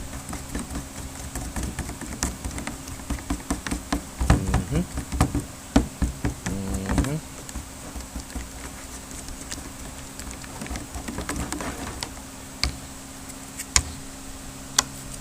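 Fiberglass resin and hardener being stirred in a container: a run of small clicks, taps and scrapes, busiest about four to seven seconds in. A steady low buzzing hum runs underneath.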